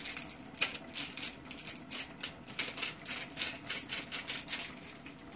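Pot of instant ramen at a rolling boil on an induction hob, bubbles popping in a quick, irregular run of light clicks over a faint steady hum; the clicks thin out near the end.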